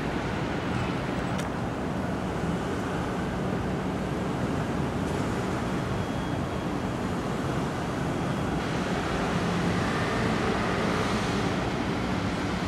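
Steady city background noise: a low, even hum of distant road traffic.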